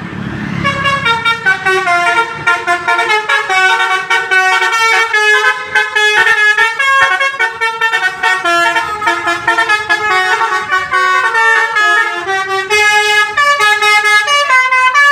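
Basuri 'telolet' multi-tone musical horn playing a fast melody of short, shifting horn notes.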